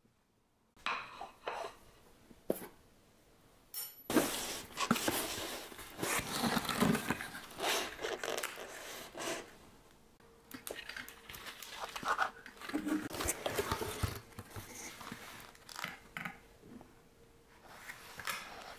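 Irregular clatter and rustling, like dishes and utensils being handled and food packaging being torn, in dense bursts from about four seconds in.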